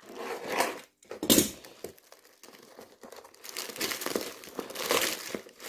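Plastic courier bag being cut and torn open with a utility knife, crinkling and rustling as it is handled. A short sharp rip comes about a second in, and a longer stretch of crinkling follows in the second half as the box is pulled out of the bag.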